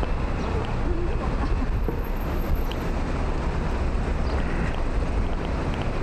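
Steady low rumble of wind buffeting the microphone, over faint city street noise.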